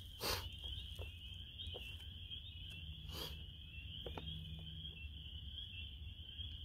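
A chorus of frogs calling, a steady high-pitched trill, over a low rumble. A few short rustles or clicks stand out, the loudest just after the start and another about three seconds in.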